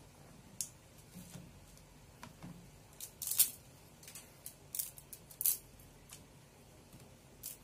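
Dried yellow noodle blocks being broken apart by hand: a scattering of sharp, brittle crackles and snaps, the loudest about three and a half seconds in.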